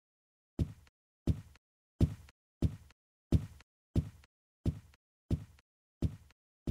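Heavy footsteps on a hard floor at a steady walking pace, about three steps every two seconds. Each step is a dull thud that dies away quickly, about ten in all, starting about half a second in.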